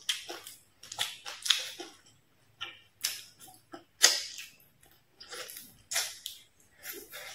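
Close-miked chewing and mouth sounds of a person eating stir-fried fish with ginger and rice: short, sharp, irregular bites and smacks, one or two a second with brief pauses.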